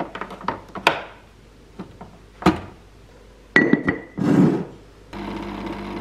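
Plastic clicks and knocks as a capsule holder is slotted into a Krups Nescafé Dolce Gusto capsule coffee machine, with a short clink near the middle. About five seconds in, the machine's pump starts with a steady buzzing hum as it brews coffee onto the milk.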